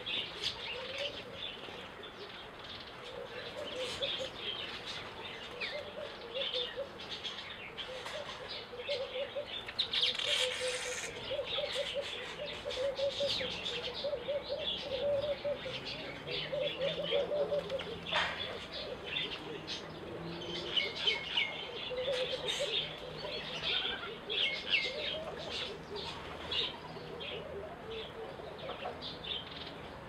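Small garden birds at a feeder (weavers, sparrows and bulbuls) keep up a stream of chirps and chattering calls. Runs of low, repeated cooing notes sound beneath them, and there is a short flutter of wings about ten seconds in.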